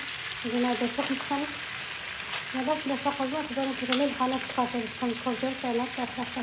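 Fish frying in hot oil in a pan, a steady sizzle with a few sharp clicks as the pieces are turned with metal tongs. A voice is heard in the background.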